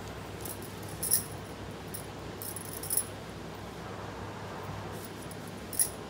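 Glass bangles on the wrist clinking together as the drawing hand moves, in several short, bright jingles; the loudest come about a second in and again just before the end, as the hand is lifted away.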